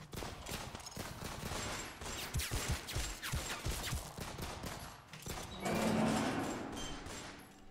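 Gunfire sound effects: a rapid, irregular run of shots and impacts for about five seconds, then a louder swelling rush of noise about six seconds in that fades away.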